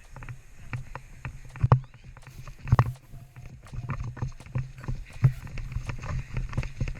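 Footsteps of a player moving on foot in airsoft gear, a pulsing run of low thumps with irregular clicks and knocks of kit, the loudest knocks near two, three and five seconds in.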